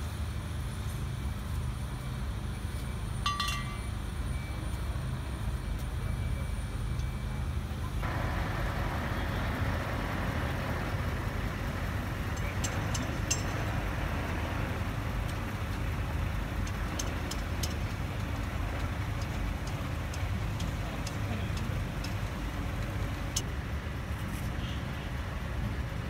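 Heavy vehicle engine running steadily as a low rumble, with a few light clinks and taps here and there.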